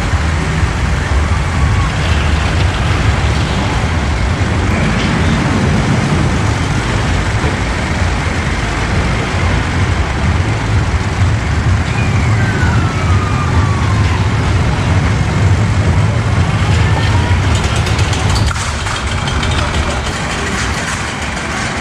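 Small kiddie roller coaster heard from on board: a loud, steady rumble of the train running on the track, with a brief falling squeal about halfway through. It eases off a little near the end.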